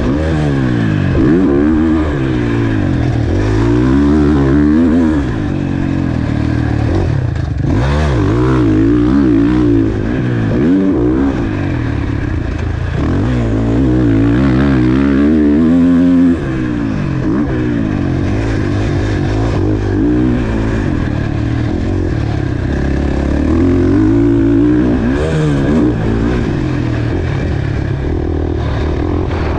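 KTM four-stroke motocross bike's single-cylinder engine ridden hard, its pitch climbing and dropping again and again as the throttle opens and closes and the gears change.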